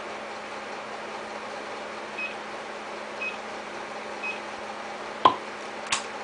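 Microwave oven running with a steady hum, giving three short high beeps about a second apart, then two sharp clicks near the end.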